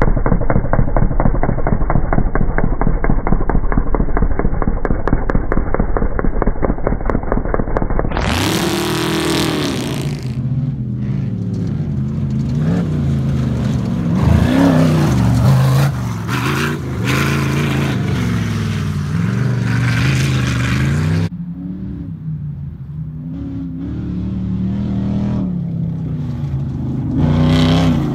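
Off-road race vehicles' engines on a dirt track. First comes a loud, rough engine close by. After a cut about eight seconds in, an engine revs up and down as it accelerates along the track. After another cut, an approaching engine grows louder toward the end.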